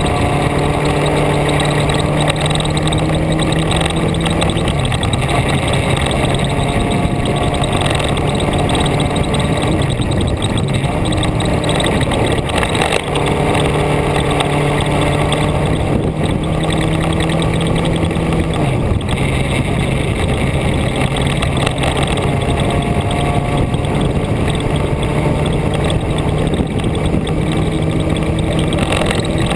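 Vehicle engine heard onboard under steady power, its pitch climbing slowly and dropping back several times with gear changes, over constant wind and road rush.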